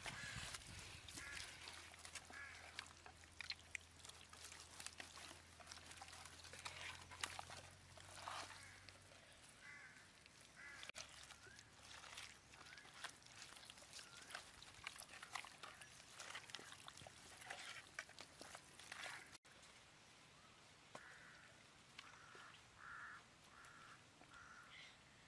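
Faint wet squelching and crackling of hands kneading chili paste into a raw whole chicken. Near the end come a few short calls, likely a bird.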